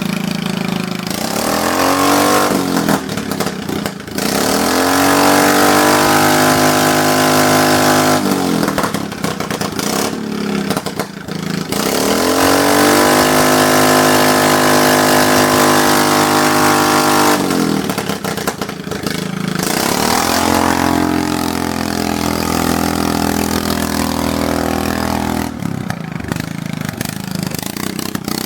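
Riding lawn mower engine revving up and easing back three times, its pitch climbing, holding high for a few seconds, then dropping back each time.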